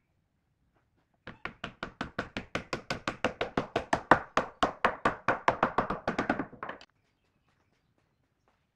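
A wooden mallet tapping a cross-shaped wooden key into its recess in a hardwood slab: a quick, steady run of light wood-on-wood knocks, about seven a second. It starts a little over a second in and stops short after about five and a half seconds.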